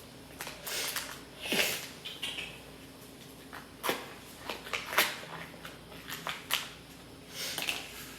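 Rummaging through a science kit: packets and plastic containers being handled, giving scattered clicks and rustles, with a brief falling squeak about a second and a half in.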